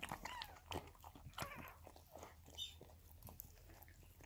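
Corgi mother licking and chewing at her newborn puppy to clean it just after birth: faint, wet smacking and clicking mouth sounds, with a short high squeak a little past halfway.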